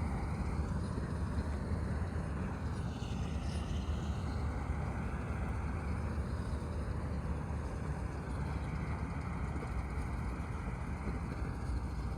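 The heavy diesel engine of harvest machinery running steadily with a deep, even rumble.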